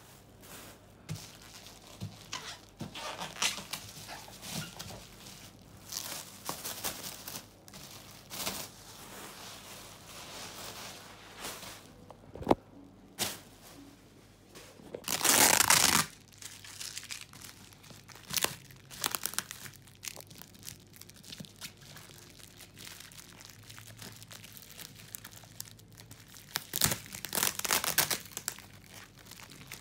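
Clear plastic wrap and bubble wrap being torn and pulled off a cardboard box by hand, crinkling in irregular bursts. The loudest rip comes about halfway through, and another flurry of crinkling comes near the end.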